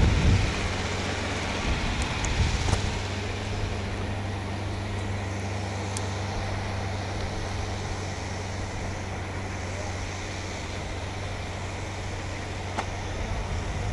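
Single-engine light plane (Darter Commander 100) flying a circuit, its propeller engine a steady distant drone. Low wind gusts buffet the microphone near the start and again about two and a half seconds in.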